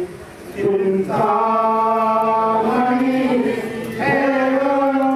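A man chanting a Marathi wedding verse (mangalashtak) into a microphone, in long drawn-out sung phrases with a brief pause just after the start and another near four seconds in.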